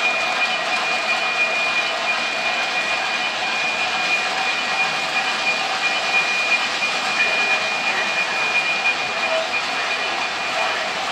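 O gauge model freight trains running on metal track: a steady rolling rumble of wheels with a steady high whine over it.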